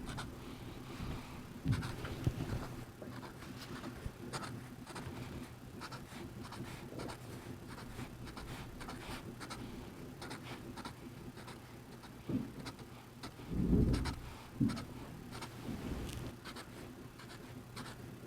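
Felt-tip marker drawing on a paper drawing pad: many short, quick strokes as small circles are dotted one after another, with a few dull low bumps a little past the middle.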